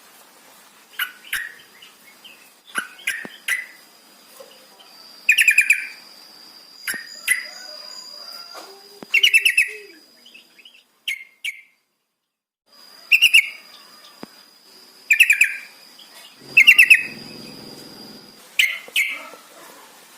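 Yellow-vented bulbul (trucukan) calling over and over, in short bubbly stuttering phrases every second or two. A thin steady high whine runs under much of it, and a little past halfway the sound drops out completely for about a second.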